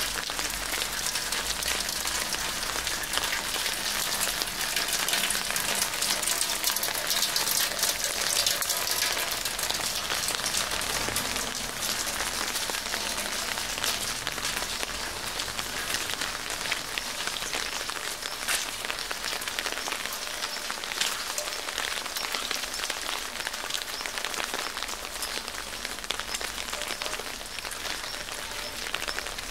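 Steady rain falling, with many individual drops heard hitting close by as small taps over the constant hiss. It is a little heavier in the first third.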